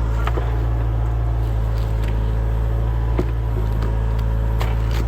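A heavy machine's engine running steadily, with scattered sharp cracks and clicks over it.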